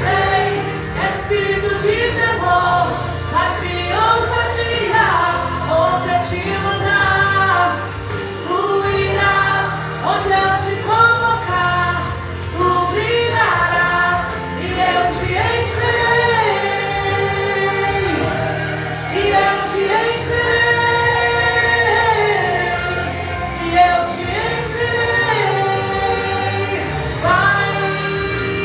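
Brazilian gospel worship song: a woman's voice and choir singing long, sustained lines over the band's accompaniment.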